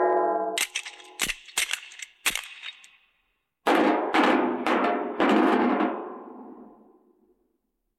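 Cartoon percussion sound effects: a quick string of sharp knocks and taps, then after a short pause three or four louder struck hits that ring on and die away.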